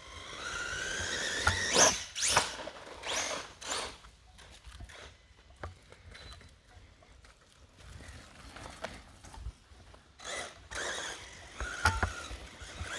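Redcat Volcano RC truck's electric motor whining and rising in pitch as it accelerates, then scattered knocks and rattles as it runs and lands over dirt, with another short whine near the end.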